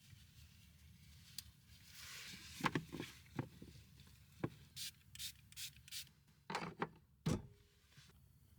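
Rustling and rubbing of objects being handled, with a string of light clicks and knocks about two to seven seconds in.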